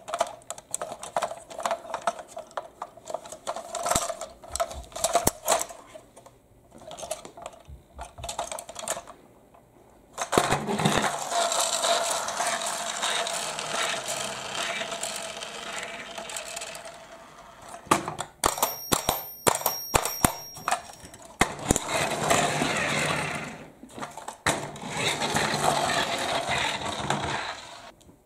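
Plastic Thomas the Tank Engine toy being handled, with scattered clicks and knocks, then a small toy motor whirring steadily from about ten seconds in, broken by a short run of high electronic tones partway through.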